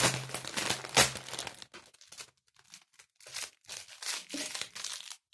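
Shiny metallic gift wrapping crinkling and rustling as it is crumpled and pulled open by hand. There is a loud crackle about a second in, then shorter bursts of rustling.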